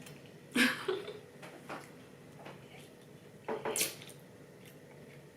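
Close-miked eating and food-handling sounds: wet squishes and a few sharp clicks. The loudest are about half a second in and again near four seconds in.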